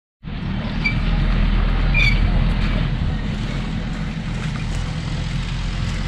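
Beach ambience: a steady low rumble, with two short high chirps about one and two seconds in.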